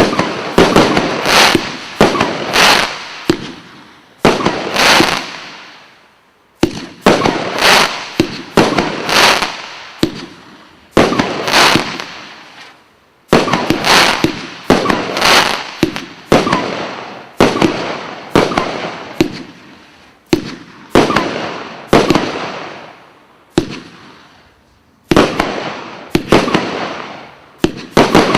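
Dragon King firework going off as a rapid series of loud bangs, roughly one or two a second, each trailing off into a fading crackle, with a few brief lulls between volleys.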